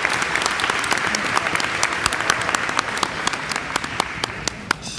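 Audience applauding, the clapping thinning to a few scattered claps and dying away near the end.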